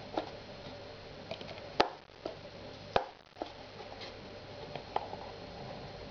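A cardboard gift box being handled and its hinged lid opened: a few sharp taps and knocks, the two loudest about two and three seconds in.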